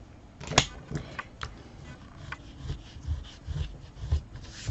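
Cardstock and tools being handled on a craft table: a sharp tap about half a second in, a few small clicks, then several soft knocks on the tabletop.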